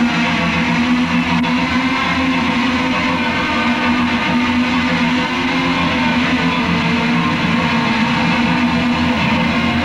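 A live rock band playing loud and steady, with electric guitar to the fore over bass, holding sustained droning chords.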